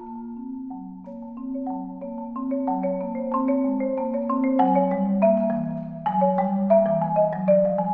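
Concert marimba played solo with mallets: a flowing stream of struck notes over a low line that steps downward, the lower notes ringing on. The playing starts soft and grows steadily louder.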